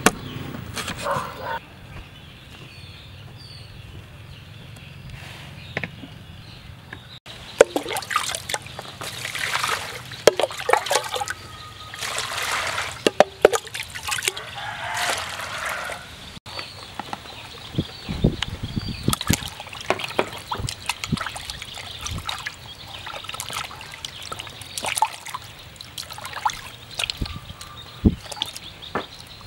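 A cleaver chops on a wooden cutting board at the start. Then comes water poured in irregular splashes from a plastic bowl into a clay jar, followed by water sloshing and splashing in a plastic basin as raw eels are scrubbed and rubbed by hand, with a few dull thumps.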